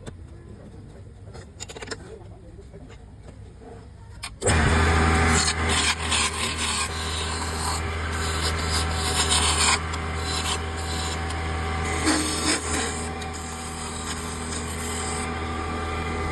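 Wood being shaped: light rubbing and scraping at first, then about four seconds in a power sanding tool starts and grinds against the wood, loud and rough over its steady motor hum.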